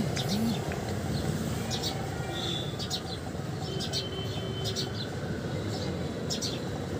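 Outdoor ambience: small birds chirping, short high chirps several times over a steady low background rumble.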